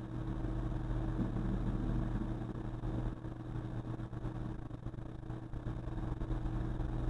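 Steady low motor hum, unchanging.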